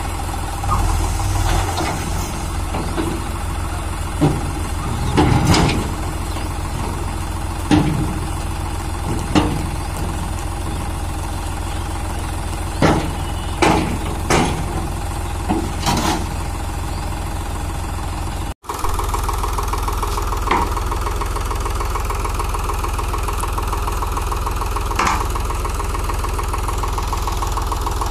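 Preet 3549 tractor's diesel engine running steadily while its hydraulic tipping trolley body comes down, with a series of sharp knocks over the first sixteen seconds or so. After a brief break in the sound the engine runs on steadily.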